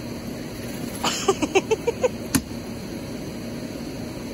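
Steady hum of a central air conditioner's outdoor condenser unit running. About a second in comes a quick run of about seven short squeaky chirps, ending in a sharp click.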